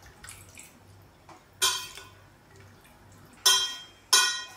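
Three sharp, ringing metal clinks against a stainless steel cooking pan, spaced a second or two apart, with quiet stirring of the curry between them.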